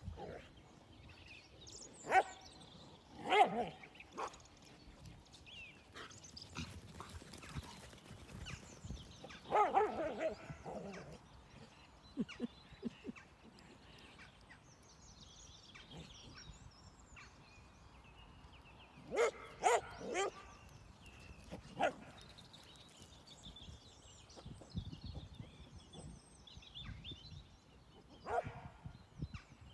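Dogs at rough-and-tumble play, giving short barks and yelps in scattered bursts: a couple near the start, one in the middle, a quick run of three later on, and one near the end.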